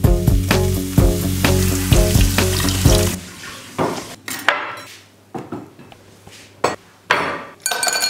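Upbeat guitar-and-bass background music for about three seconds, then it cuts off. After it comes a short sizzle from a frying pan, then ceramic plates knocking as they are set down on a wooden table. Near the end, ice cubes clink into a glass with a bright ring.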